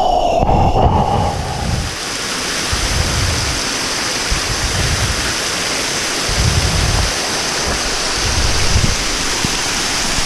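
Small waterfall, water rushing steadily, with low gusts of wind on the microphone. A steady high whine is heard at the start and stops about a second in.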